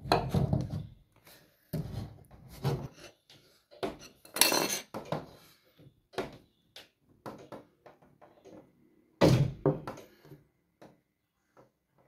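Interior door moved on its freshly motor-oiled hinge: a string of irregular thunks and knocks, the loudest near the start, about halfway, and about three-quarters through, with no squeak from the hinge.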